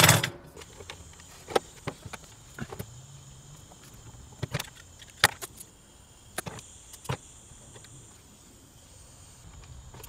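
Scattered small clicks and taps of tools and taillight parts being handled on a workbench, a sharp knock right at the start and about a dozen lighter ones after it.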